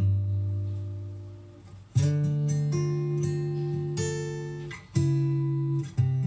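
Acoustic guitar music: chords strummed and left to ring, each fading before the next is struck, with new chords about two, five and six seconds in.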